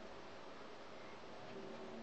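Steady faint hiss of background noise, with no distinct event standing out.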